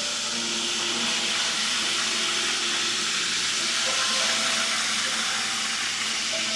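Chicken frying in a fryer, a steady hiss of sizzling, with faint music underneath.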